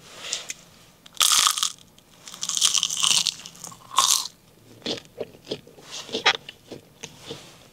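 Close-miked biting into a crispy McDonald's Chicken McNugget: a loud crunch about a second in, a stretch of crunchy chewing, another crunch around four seconds, then softer chewing clicks.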